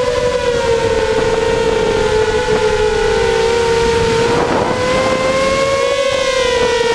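Four 2300 kV brushless motors and propellers of a 250-size FPV racing quadcopter in flight, heard up close from the quad itself: a steady, loud whine with a rushing of prop wash and air. The pitch drifts up and down with the throttle and dips briefly about halfway through.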